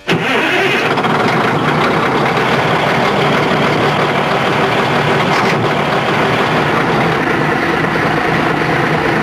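A large engine running steadily and loudly.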